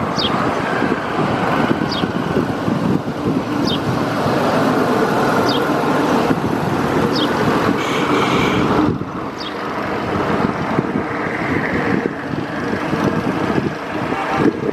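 Steady road traffic noise, with a short high chirp repeating about every two seconds.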